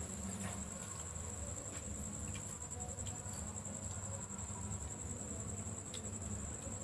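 Night insects, crickets, trilling without pause in one steady high tone, over a low steady hum. A few faint clicks of spoons on plates.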